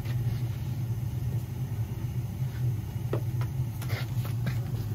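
Steady low rumble of a Weil-McLain CGA gas boiler's burner firing, just relit after a gas valve replacement. A few light knocks come about three to four seconds in.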